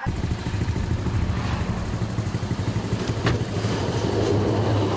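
Vehicle engine idling steadily, a low, fast-pulsing hum, with a single short click about three seconds in.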